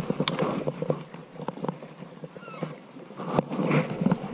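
Close handling noise in water hyacinth: leaves and stems rustling and crackling in a quick run of small clicks and taps as a small, just-landed fish is handled, with one sharp crack about three and a half seconds in.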